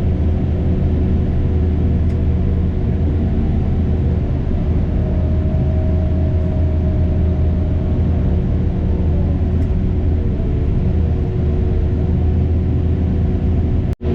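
Heavy construction machine's engine running steadily with a deep, even rumble. It drops out for an instant near the end.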